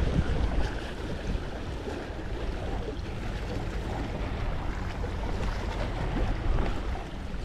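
Wind blowing on the microphone over the sea washing against a rocky shore: a steady rushing noise.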